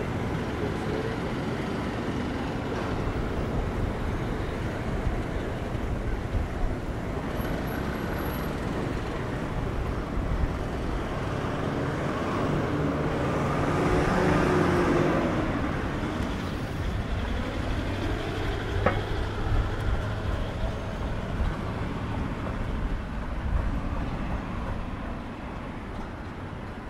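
Street traffic noise, with a motor vehicle passing close: its engine hum rises to a peak about halfway through and fades away. A single sharp click follows a few seconds later.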